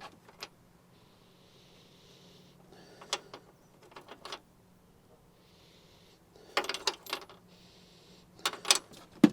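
Metal clinks and rattles from a spark plug, socket and hand tools being handled, in several short bursts, with a sharper knock near the end.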